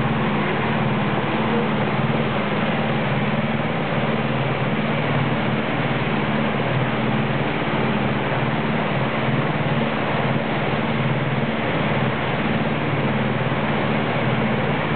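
Fishing boat's engine running steadily under way, a low drone over the rush of water from the wake.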